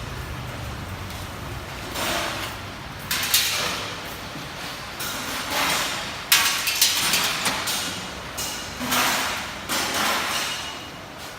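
Ice being scraped and knocked in a multi-blade ice-cutting machine, in a series of separate scraping bursts with knocks. The sharpest knock comes about six seconds in.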